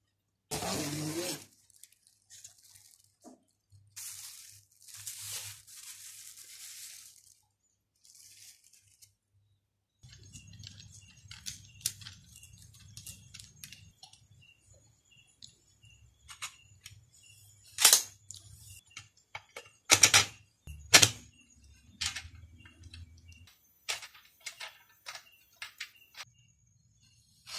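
Plastic wrapping rustling and tearing for several seconds, then the metal tubes and tripod of a photography backdrop stand clicking and knocking as they are handled and fitted together, with three sharp loud clacks past the middle.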